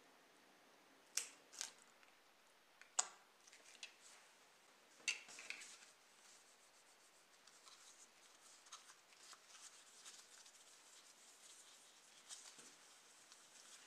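Four sharp little clicks of small plastic parts and tools being handled in the first five seconds, then faint soft rubbing as gloved fingers and a cloth pad work polishing cream over a clear plastic model-car window.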